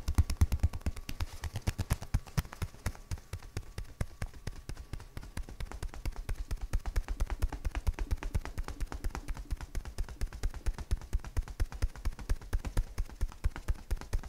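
Rapid hand percussion on a bare back: palms and hand edges patting the skin in an even rhythm of about seven strikes a second.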